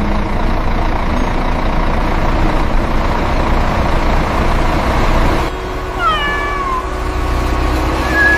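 Steady vehicle engine and road rumble. About six seconds in a cat gives one short meow that falls in pitch.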